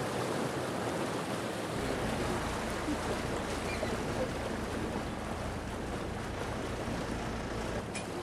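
Steady wash of water and wind from a small river boat under way, with a low engine rumble that comes in about two seconds in and fades near the end.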